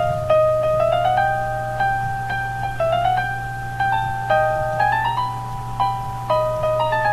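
Instrumental music made in free software, recorded through a cheap microphone: a plucked, piano-like tone plays quick rising runs of notes, a new phrase about every second, over a steady low hum.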